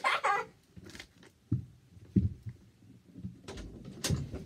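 Movement noise in a small room: scattered soft thumps and rustling as a person shifts and gets up, with a couple of sharp clicks near the end.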